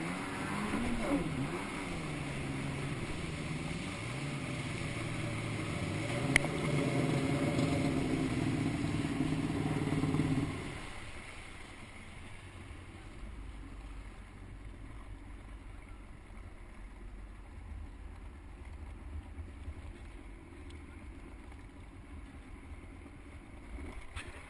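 Jet ski engine running under throttle, its pitch rising and falling for about ten seconds, then dropping off suddenly to a low rumble as the ski coasts in.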